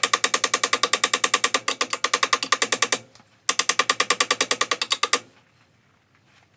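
Electric welder laying weld on a cracked steel motorcycle frame part, the arc pulsing at about a dozen beats a second. It welds in runs: one stops about three seconds in, another goes from about three and a half to five seconds in, and a new run starts right at the end.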